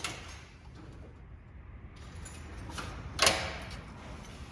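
Metal hand tools being handled at an engine, with a few light clicks and one sharp metallic clink a little over three seconds in.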